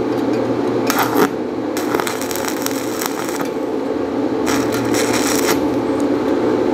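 Stick-welding arc on a rutile electrode at 80 amps crackling in three bursts, the longest nearly two seconds, cut off between them as the electrode is snapped away and the arc goes out at once. This is the break-arc welding technique, and a sharp pull makes the arc die immediately. A steady hum runs underneath.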